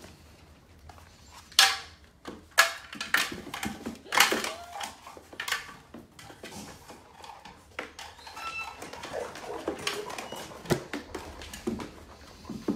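A dog moving about a small room with a run of sharp knocks and clatters, the loudest about one and a half to five and a half seconds in, then quieter rustling and scuffing.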